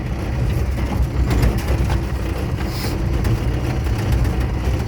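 Steady low rumble of a moving vehicle's engine and road noise, with a few faint clicks and rattles.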